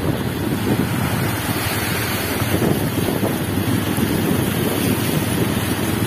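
Wind buffeting the microphone over the wash of floodwater churned up by motorcycles and a truck driving through a flooded street. A steady, fluttering noise with no separate events.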